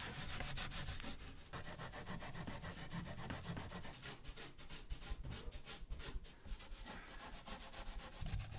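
Burned wood surface being scrubbed by hand with a brush in quick repeated strokes, taking off the char to bring out the grain.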